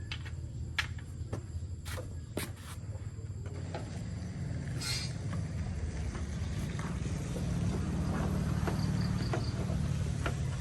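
A vehicle engine running steadily, growing louder in the second half. A few sharp clicks come in the first three seconds.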